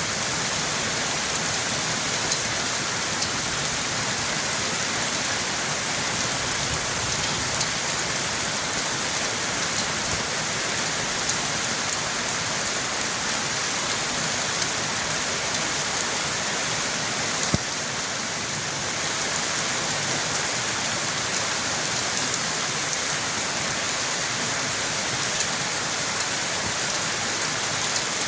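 Steady rain falling, an even hiss dotted with small drop ticks, with one sharper tick a little past halfway.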